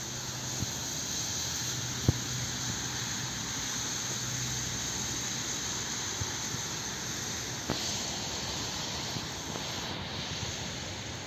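Steady outdoor background roar picked up by a smartphone's microphone, with a faint low hum during the first half and a couple of light clicks, the sharpest about two seconds in.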